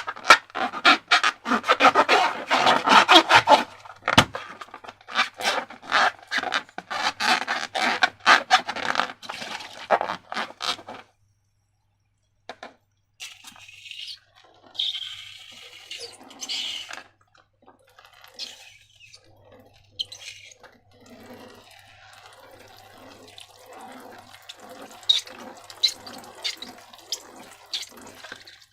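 Wet, sticky slime squelching and crackling as it is worked and squeezed, dense for the first several seconds, then a short pause and softer, separate squishes with small pops.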